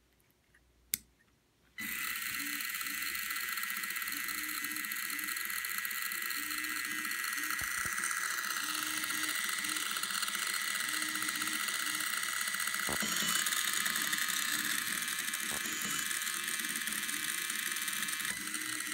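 Small geared DC drive motors of a Yahboom Pico robot car running, spinning its wheels with a steady whirring gear noise that starts about two seconds in, after a single click.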